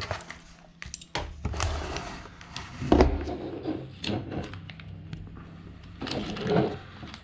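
Handling noise as a carbon-fibre racing-drone frame is lifted out of its packaging and set down on a wooden desk: scattered light knocks and rustles, with one dull thump about three seconds in.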